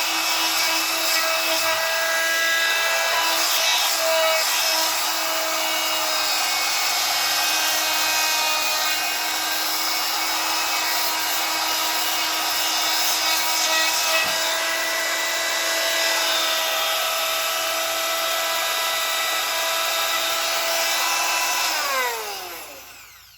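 Small handheld power tool's electric motor running at high speed with a steady whine, then switched off and spinning down to a stop near the end.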